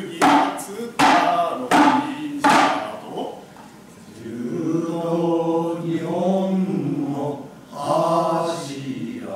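Four sharp hand-drum strikes, a little under a second apart, then from about halfway a group of voices chanting together in long held notes: the sung chant of Goten manzai with its drum accompaniment.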